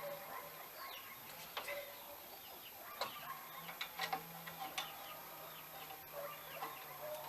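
Chickens clucking together with short bird chirps, over a faint steady hum, with a few sharp clicks in between.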